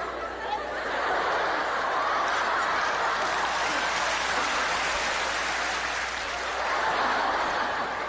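Studio audience laughing and clapping together, swelling about a second in and then holding steady.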